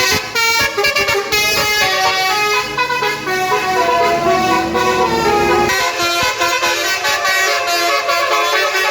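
Indonesian 'telolet basuri' bus horns, roof-mounted multi-trumpet air horns, sounding a melody of several notes at once that change in steps. A low bus rumble runs under them and stops about six seconds in.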